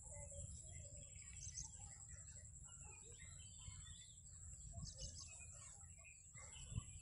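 Faint birds chirping in short scattered calls over a steady high-pitched whine and a low rumble.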